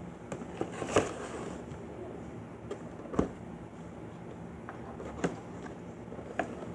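Cardboard and plastic toy packaging being worked open by hand: scattered knocks and clicks, a few seconds apart, over a steady low hum.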